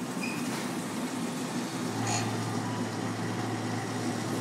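f'real self-serve milkshake blending machine running mid-blend with a steady mechanical hum; a low steady tone joins about two seconds in.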